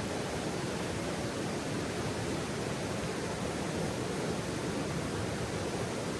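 Flowing water, a steady, even rushing with no separate crackles or pops.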